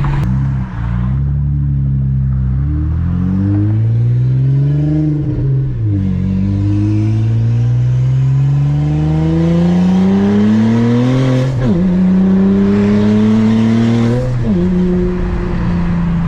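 Saab 9-3 Aero's turbocharged 2.8 V6 under hard acceleration, its pitch climbing through the gears. There are quick drops at the shifts about six, eleven and a half and fourteen and a half seconds in, and then it holds a steady pitch. At wide-open throttle it pulls without the misfire it had before.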